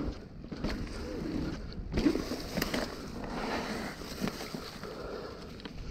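Mountain bike rolling down a dirt trail covered in dry leaves: a steady rush of tyres over dirt and leaves with wind rumble on the microphone, broken by several sharp rattles and knocks from the bike over bumps.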